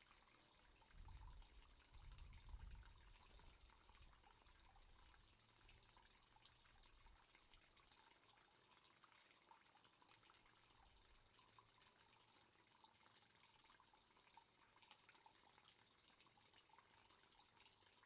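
Faint trickling and dripping of water in a garden fish pond. A low rumble sounds between about one and three seconds in.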